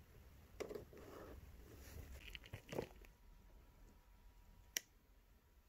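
Faint handling noise of a plastic corner connector being worked onto a stainless steel tube: a few soft rubs and scrapes over the first three seconds, then a single sharp click near the end.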